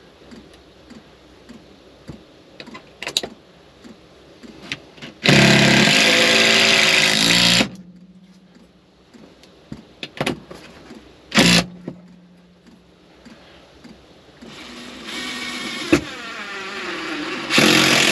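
Cordless drill/driver driving long screws through a wooden 2x2 into the floor. It runs loudly for about two and a half seconds starting five seconds in, gives a short burst near the middle, then makes a longer run from about fourteen seconds in that ends louder. Small handling clicks come between the runs.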